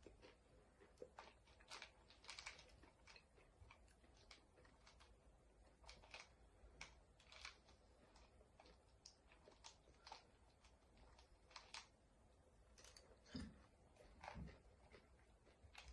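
Faint, irregular clicks and taps of chopsticks against each other, the hard-shelled M&Ms and the dish as they are repeatedly fumbled for a grip.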